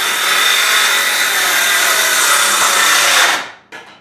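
A power tool running steadily under load, cutting into a wall, then cutting off about three seconds in, followed by a light knock.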